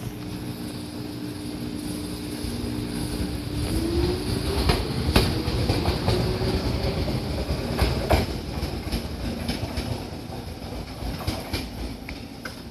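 Fujikyu 6000 series electric train (a converted JR 205 series) pulling out and accelerating away, its motor whine rising in pitch. Wheels clack sharply over rail joints a few times midway, then the sound fades as the train recedes.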